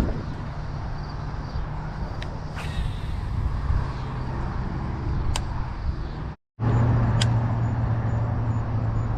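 Steady low engine hum with a few faint sharp ticks. The sound cuts out completely for a moment about six and a half seconds in, then comes back with the hum louder.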